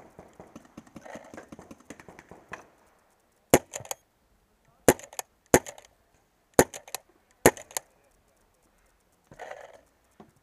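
Pump paintball marker fired five times, roughly a second apart. Each sharp pop is followed by a couple of fainter clicks. Before the shots there is a patter of small scuffs and clicks.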